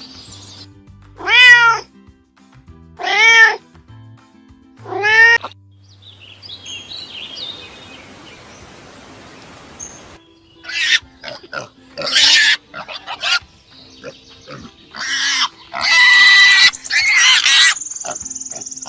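A domestic cat meowing three times, each meow a short call that rises and falls in pitch, a couple of seconds apart. About halfway through, a run of loud, harsh animal squeals and calls begins, over faint background music.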